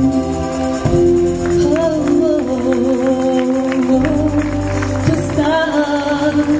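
Live Christian worship music: a woman sings over held keyboard chords, with a run of light percussion strokes in the middle and a sung phrase climbing in pitch near the end.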